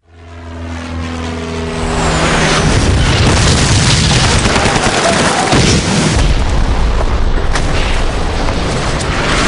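Battle sound of a war-film trailer: a low held tone swells over about two seconds into a continuous din of explosions and gunfire, with a few sharp cracks in the second half.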